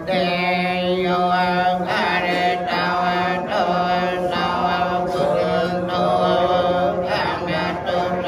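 Theravada Buddhist monks chanting Pali together, a steady droning recitation held on one low pitch with short breaks between phrases.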